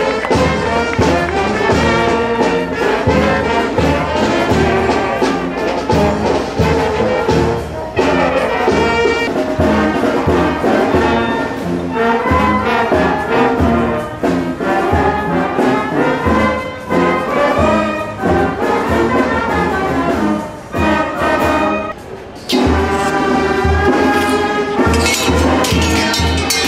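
Brass band music with trumpets and trombones over a steady bass beat. It drops away briefly about three-quarters of the way through, then starts again with a strong beat.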